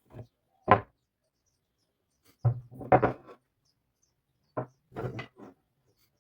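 Wooden pieces knocking and clattering as they are handled and set down on a hard surface: single knocks early, then a quick cluster of several about halfway through and another near the end.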